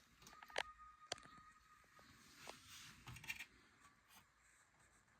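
Near silence with a few faint, short clicks and light knocks, and a faint thin high tone in the first two seconds.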